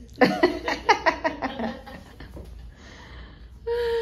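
A woman laughing in a quick run of short bursts for about a second and a half, then a drawn-out vocal sound that slides down in pitch near the end.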